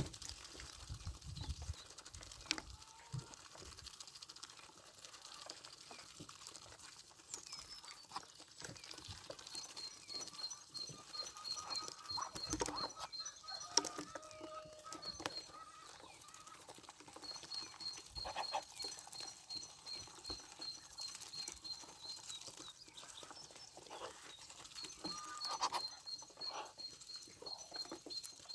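Poultry at feeding time: scattered soft pecking and scuffing taps, with long runs of rapid, high repeated peeps from about a third of the way in.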